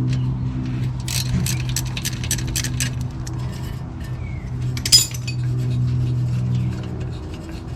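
Metal hand tools working on a car's front suspension: a run of quick clicks, about five a second, for about two seconds, then a single sharp metallic clink near five seconds in. A steady low hum runs underneath.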